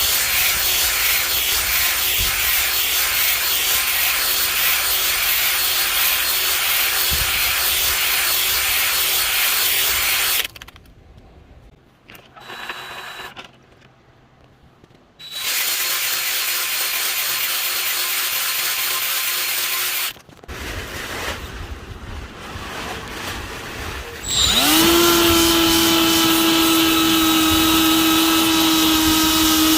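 Power drill spinning a 240-grit flex hone in an engine cylinder bore, with a steady grinding scrub. It runs for about ten seconds, stops, then runs again for about five more. Near the end a motor spins up quickly to a steady high whine.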